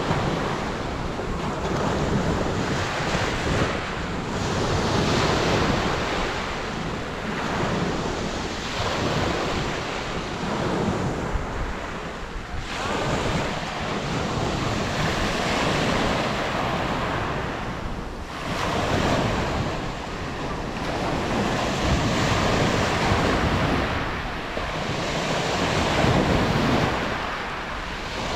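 Mediterranean surf washing onto a beach, waves swelling and receding every few seconds, with wind rumbling on the microphone.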